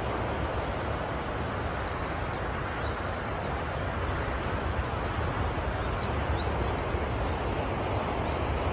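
Steady wind noise buffeting the microphone, with a low rumble, and faint short high chirps of birds scattered through it.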